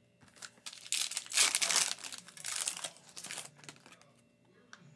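Foil wrapper of a Panini Select basketball card pack crinkling and tearing as it is ripped open by hand, in several spells of rustling over about three seconds, starting just under a second in.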